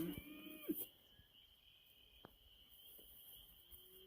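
A young calf bawling: one rising call in the first second, then a shorter, fainter call near the end. A faint steady high tone runs underneath.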